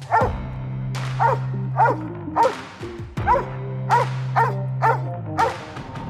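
Treed hunting dog barking a steady chop at the tree, about two barks a second, marking that it has the raccoon treed. Music with a low held note plays underneath.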